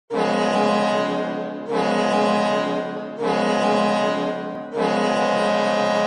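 Bridgeport Sound Tigers' 2008 arena goal horn blowing four loud blasts: three of about a second and a half each, then a fourth held longer.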